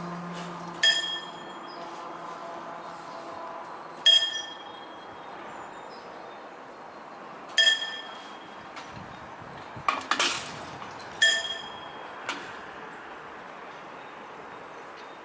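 Railway level-crossing bell striking single ringing dings about every three and a half seconds while the barrier booms lower. A low hum of the barrier drive runs for the first few seconds, and a louder clatter comes about ten seconds in.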